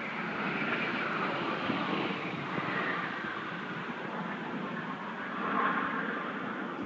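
Aircraft engine noise from a plane flying past, a steady rush that swells to its loudest about five and a half seconds in and then eases off.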